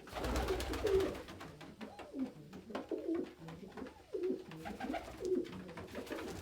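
Domestic pigeons cooing, a series of low coos one after another, with scattered light clicks.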